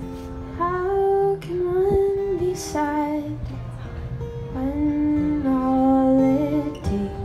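Acoustic guitar strummed alone, then a woman's singing voice comes in about half a second in, singing sustained, sliding notes over the guitar.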